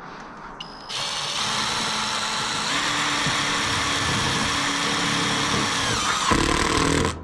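Cordless drill running steadily for about six seconds as it drills into steel roof flashing. It gets louder and lower near the end, then stops abruptly.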